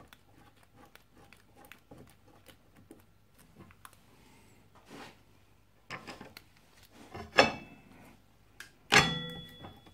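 Metal-on-metal clicks and knocks as a motorcycle front brake caliper is fitted onto its fork leg and its retaining bolts are started by hand. There are light clicks at first, then two sharper clanks in the last few seconds, the second ringing briefly.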